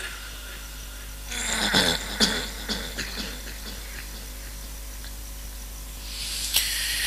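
A pause in a Quran recitation heard through a hall PA system, with a steady electrical hum. Between about one and three seconds in there are a few short voice sounds and clicks. Near the end comes a breathy hiss into the microphone as the reciter draws breath.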